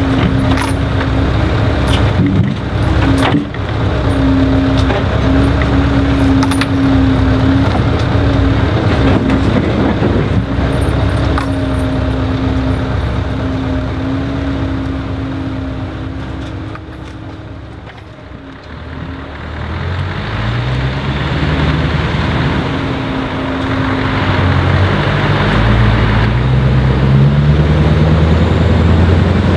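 A steady diesel engine drone with a few sharp knocks. After a short dip, the loaded Scania R500's straight-piped V8 pulls away hard, its pitch climbing again and again as it shifts up through the gears.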